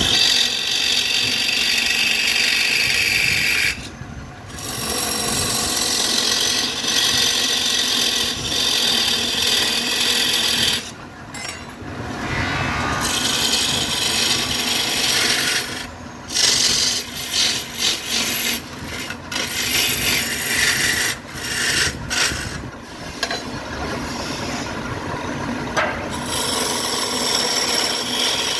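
A turning tool working against a spinning glued-up wooden veneer blank on a woodturning lathe: a loud, steady rasping hiss, broken by a few short pauses where the tool comes off the wood.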